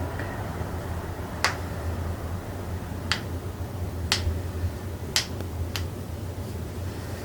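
Five sharp joint cracks, the pops of a chiropractic manipulation, spread over several seconds above a steady low hum.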